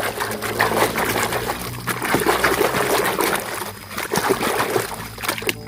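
Water splashing and trickling as a mud-covered plastic toy vehicle is washed, in irregular splashes and drips.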